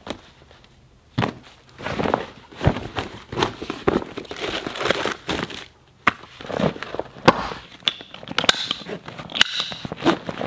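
Recovery gear being packed into a heavy-duty vinyl roll-top gear bag: the fabric and rope rustle in irregular bursts, with several sharp clicks and knocks as hard items go in and the bag is strapped shut.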